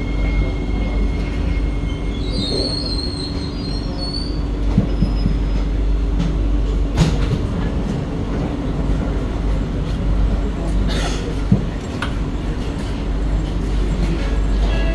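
Kawasaki-Sifang C151B metro train pulling to a stop at a platform: a thin whine stops about two seconds in, then a brief high brake squeal. The train stands with its doors open over a steady hum, with a few sharp clicks.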